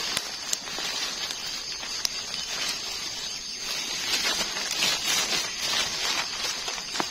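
Rustling and crackling of wet leaves and undergrowth as a gloved hand works through the leaf litter picking termite mushrooms. A few sharp snaps stand out, near the start, about two seconds in, and near the end.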